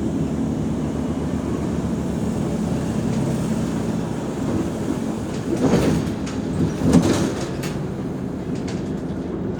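Mercedes-Benz O345 Conecto G articulated bus running, its diesel engine making a steady low drone, with two brief louder clattering jolts about six and seven seconds in.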